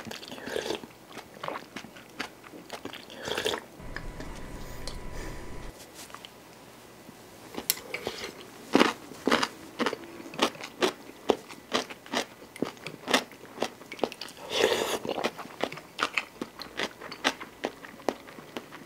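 Close-miked eating: chewing of crunchy kkakdugi (cubed radish kimchi) with soup, with many short crisp crunches that grow denser and louder in the second half.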